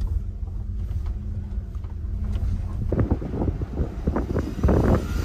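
Car engine and road rumble inside the cabin as the car is driven slowly, with wind buffeting the microphone. A steady low hum runs through the first half, and short muffled knocks and rustles come in the last two seconds.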